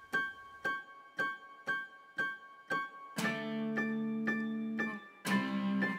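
Outro music on a keyboard: a short high note repeated about twice a second, then fuller chords held from about three seconds in, with a brief break before another chord near the end.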